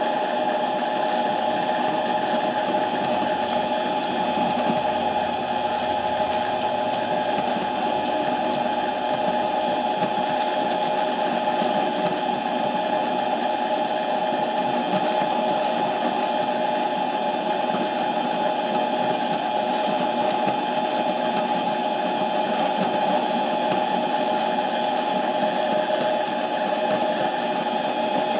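Harbor Freight mini lathe running steadily, its motor and gear train giving a constant whine as it turns a light cut on a camshaft journal sleeve.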